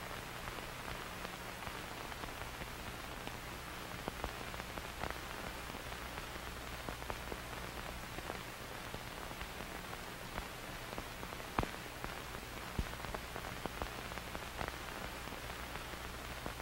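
Steady static hiss with scattered crackling clicks over a low, steady hum.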